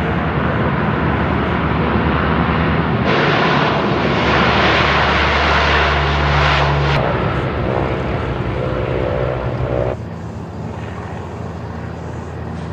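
Four-engined C-130H Hercules turboprops running at high power on the takeoff roll: a steady drone with propeller hum. The sound jumps louder about three seconds in and drops abruptly near ten seconds as the shot changes.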